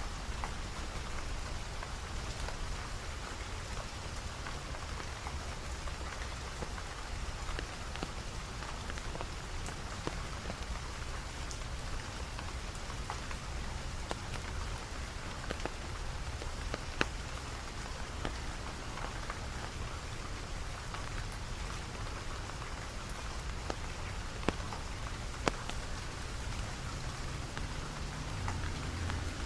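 Steady rain falling, with sharp individual drops ticking now and then. A low hum comes in near the end.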